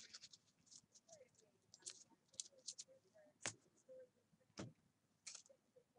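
Near silence with faint, scattered clicks and ticks, two of them a little louder past the middle.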